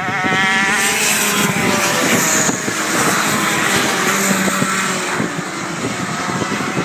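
KZ2 gearbox karts' 125cc two-stroke engines running at racing speed, their engine note rising and falling without a break.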